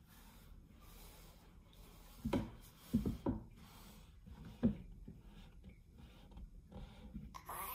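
Faint rubbing of a small toy paint roller over paper on a wooden table, with a few short knocks in the middle.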